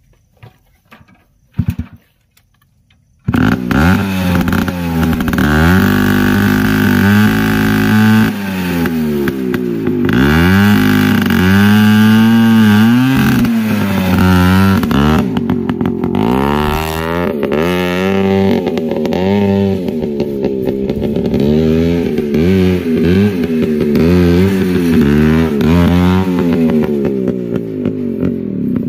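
TVS Max 100 motorcycle's single-cylinder engine blaring through a large metal trumpet horn fitted to its silencer outlet, very loud and strongly pitched. It comes in suddenly about three seconds in and is revved and ridden, the pitch rising and falling over and over with the throttle, then falls away near the end.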